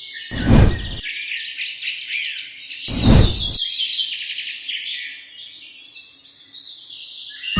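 A dense chorus of small birds chirping rapidly, with two short, loud rushing noises about half a second and three seconds in.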